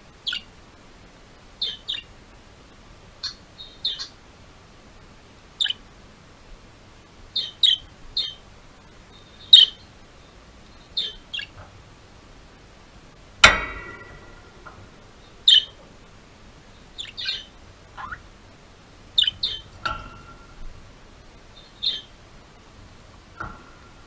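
Budgerigars chirping, short high calls coming every second or so, some in quick pairs. About halfway through there is one sharp knock that rings briefly, the loudest sound.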